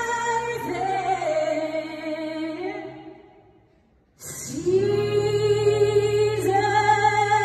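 A woman singing live into a microphone over sustained accompaniment, heard through the hall's PA: a sung phrase fades out about three and a half seconds in, a brief hush follows, then she holds one long note to the end.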